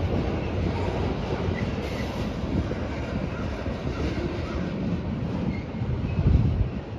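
Covered grain hopper cars of a freight train rolling past: a steady rumble of steel wheels on rail, swelling briefly about six seconds in and easing off near the end.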